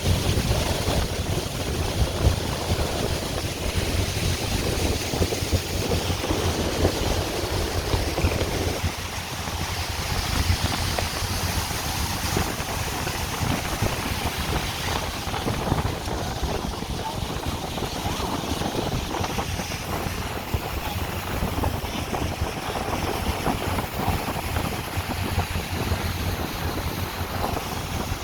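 Tour boat under way: its engine drones steadily under wind buffeting the microphone and the rush of water.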